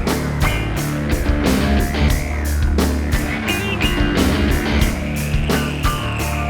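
Rock music with a steady driving drum beat, distorted guitar and bass.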